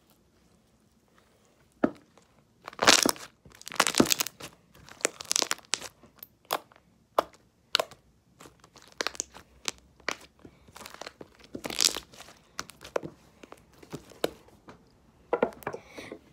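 Glossy slime being pressed into and pulled off the strings of a tennis racket by hand, making irregular sticky crackles and pops. They start about two seconds in and are loudest just after that.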